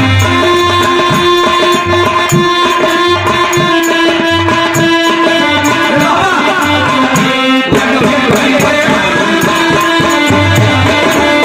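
Bhojpuri birha accompaniment: harmonium holding steady chords over a dholak drum rhythm, with manjeera hand cymbals ticking on the beat. The harmonium changes chord about eight seconds in.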